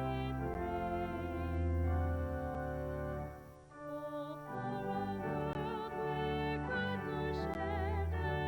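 Church music with sustained chords and a melody sung with vibrato over them. It thins out briefly about three and a half seconds in, then resumes.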